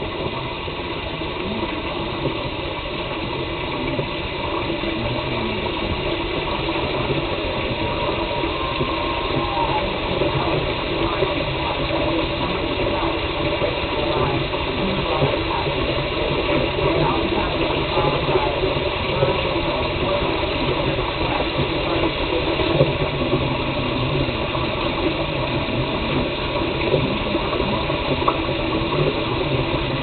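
Tap water rushing steadily through a Nalgene venturi aspirator vacuum pump, drawing a vacuum on a jar of water.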